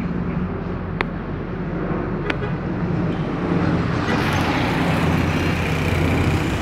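Low, steady drone of a large military propeller transport plane flying over, growing louder about two thirds of the way in as it comes nearly overhead, mixed with street traffic noise.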